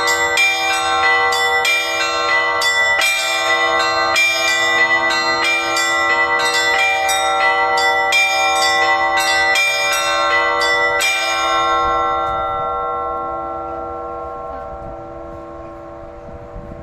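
Orthodox church bells rung by hand in a festive Easter peal: the small bells are struck in a quick rhythm over the steady hum of the larger bells. About eleven seconds in the striking stops, and the bells ring on and slowly fade.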